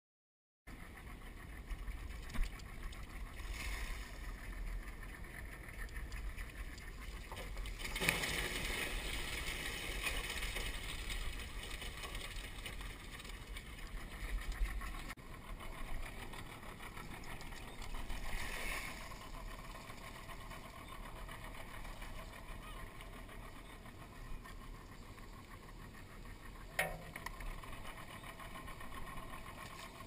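Crawfish trap being hauled out of shallow marsh water over an aluminum skiff's side: water splashing and running off the mesh, with a couple of louder rushes of water and a sharp knock near the end, over a low rumble.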